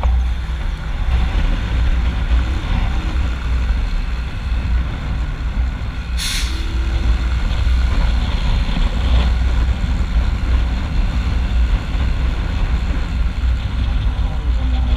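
Hozaka 150 GNX motorcycle's single-cylinder engine running at road speed, heavy wind rumble on the microphone over it, in traffic. A short burst of hiss about six seconds in.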